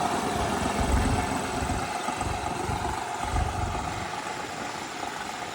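New Holland 3630 tractor's three-cylinder diesel engine running through a newly fitted silencer, a steady exhaust note with a low throb that slowly grows fainter.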